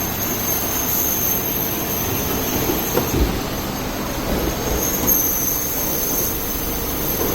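Bread crust-peeling machine running: a steady mechanical hum with a thin high whine, and a couple of brief knocks about three and five seconds in.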